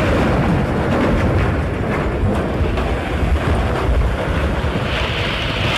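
Landslide rumble: rock and debris crashing down a mountainside in a steady, dense roar with scattered cracks.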